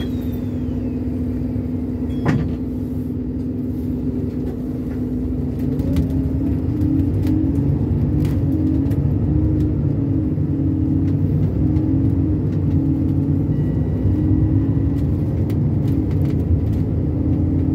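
Bus engine and drivetrain heard from inside the passenger cabin as a steady low hum. It grows louder from about six seconds in, its pitch wavering up and down as the bus drives on. One sharp knock sounds about two seconds in.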